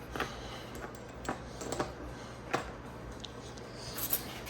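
Scattered light clicks and taps of small metal parts and tools being handled, a few of them sharper, over a steady low hum.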